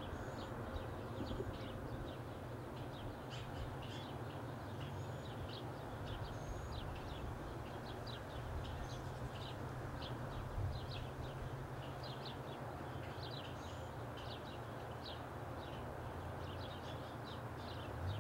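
Outdoor ambience: small birds chirping in short, repeated calls over a steady low rumble.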